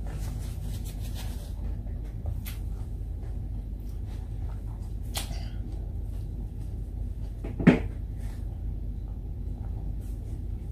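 Quiet mouth and hand-eating sounds, faint clicks and rustles of fingers picking up rice and food from a plastic-covered table, over a steady low hum. A single brief, louder knock comes about three-quarters of the way through.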